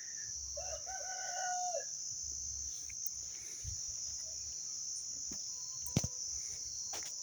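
A rooster crows once, about half a second in, lasting over a second, over a steady high trill of crickets. A couple of sharp clicks come near the end.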